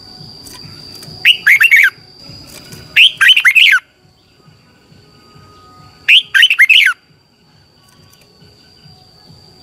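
Red-whiskered bulbul singing three short, loud phrases, each a quick run of falling notes, with pauses of a second or two between them.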